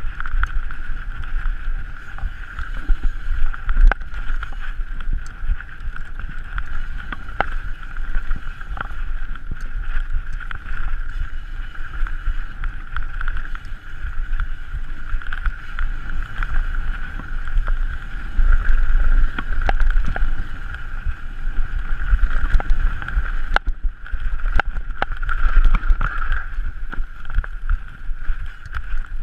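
Mountain bike descending a dirt trail at race speed: tyres rumbling over the ground and wind buffeting the microphone, with a steady high buzz and scattered knocks and rattles from the bike hitting bumps.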